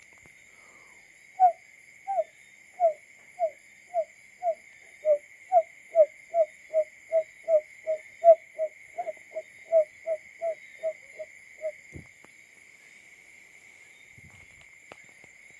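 Barred buttonquail call: a series of about two dozen short, low hooting notes, starting slowly and speeding up, then stopping about 12 seconds in. A steady high-pitched hum runs underneath.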